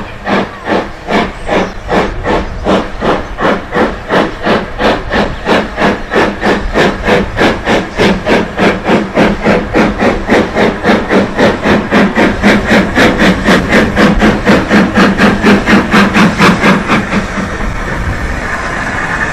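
Midland Railway 4F 0-6-0 steam locomotive approaching under steam, its exhaust beating evenly about four times a second and growing louder. Near the end the beats stop, leaving a steady hiss.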